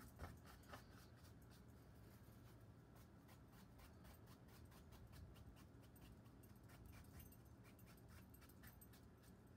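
Faint, quick, repeated scratchy strokes of a wide bristle brush scrubbed back and forth across stretched canvas, blending wet oil paint, over a low room hum.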